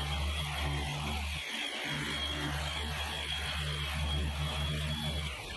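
Machine polisher running steadily while buffing correcting cream on a clear bra (paint protection film), with a brief dip in its hum about a second and a half in.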